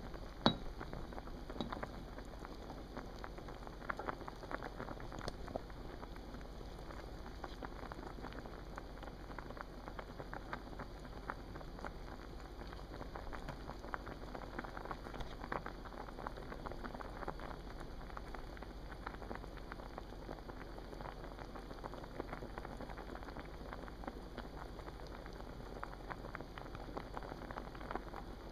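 A pot of water at a boil, with a steady, dense crackle of bubbles popping. There is one sharp click about half a second in.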